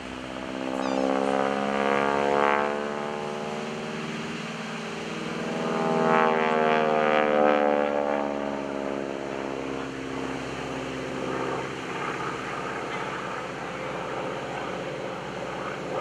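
An SNJ-5 Texan's Pratt & Whitney R-1340 nine-cylinder radial engine and propeller running hard through aerobatic manoeuvres. The note swells twice, about two seconds in and again around six to eight seconds in, with its pitch bending as the plane climbs and turns, then settles to a steadier, fainter note.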